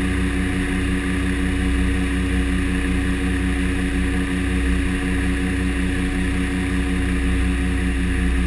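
Cabin drone of a DHC-6 Twin Otter's twin PT6A turboprop engines and propellers in flight, a steady hum that throbs a few times a second.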